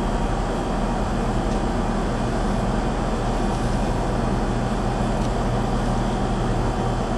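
Steady mechanical hum with a constant rushing noise over it, unchanging throughout.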